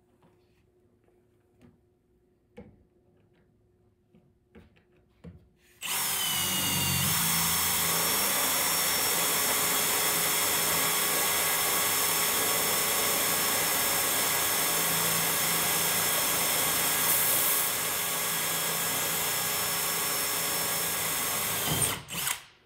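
Power drill boring rivet holes for a trim plate: it starts suddenly about six seconds in, runs steadily for about sixteen seconds, then stops. A few light clicks come before it.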